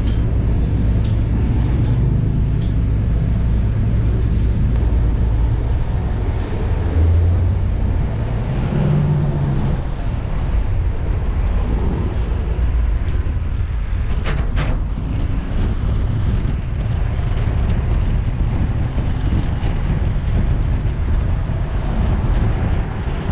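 Car driving at highway speed: a steady low rumble of engine and road noise.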